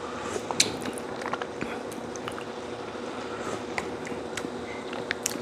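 Close mouth noises of a man tasting elbow-macaroni soup from a ladle: scattered small smacks and clicks of lips and tongue as he chews and judges the seasoning.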